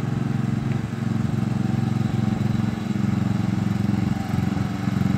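Riding lawnmower's small engine running steadily as the mower drives along.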